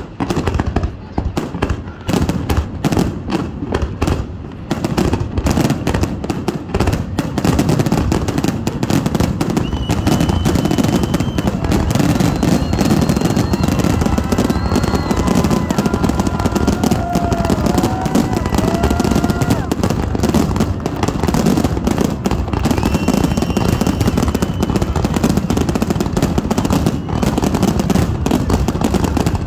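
Fireworks finale: a barrage of aerial shell bursts that comes faster about eight seconds in, until the bangs merge into a continuous rumble of booms and crackle. High held whistling tones sound over it through the middle.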